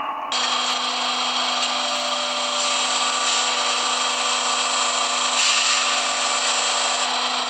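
A hydraulic press's electric pump motor starts a moment in and runs steadily, with a constant hum and a bright mechanical whine.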